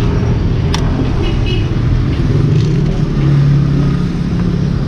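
Steady low hum of a nearby engine running, with a faint click about a second in.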